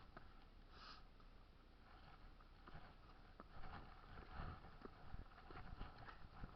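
Faint footsteps and scuffs of hiking boots on sandstone rock during a climb, scattered soft knocks, with a short sniff or breath about a second in.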